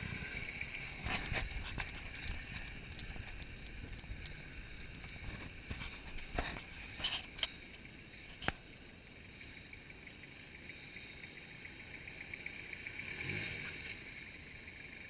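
A 4WD ute's engine running at low speed as it crawls over rocks, with several sharp knocks and clicks as the tyres and underbody meet the boulders, the sharpest about two-thirds of the way through.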